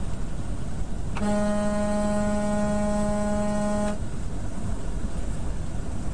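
A vehicle horn sounds one steady note for close to three seconds, starting about a second in and cutting off sharply. Underneath is the constant road and engine rumble of a semi truck at highway speed.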